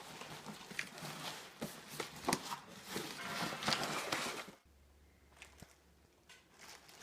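Cardboard box and packaging being opened and handled: rustling and scraping with small irregular knocks, which stop about two-thirds of the way through.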